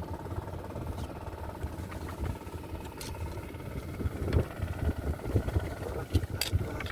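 A small boat's engine running steadily, with irregular low thumps from about four seconds in.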